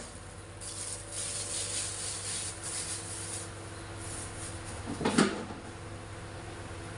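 Broth bubbling at a gentle boil in a wok, a hiss of simmering over a steady low hum, with one short knock about five seconds in.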